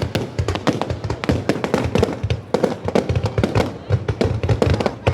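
Fireworks bursting in a dense barrage, several sharp bangs a second one after another without a pause.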